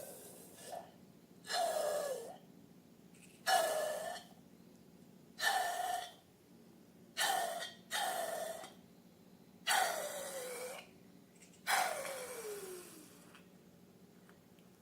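Repeated short hissing, squelching bursts of air forced out through a slime-filled balloon, about seven of them, each ending in a squeak that falls in pitch; the last one is the longest.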